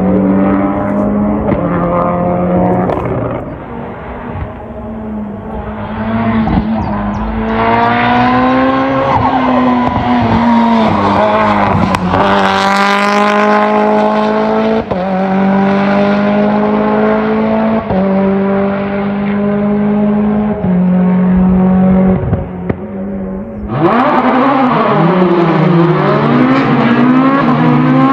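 Racing car engine at full throttle, climbing in pitch through several upshifts and passing close about halfway through, then its note stepping away as it recedes. Near the end a second car's engine comes in suddenly and loud.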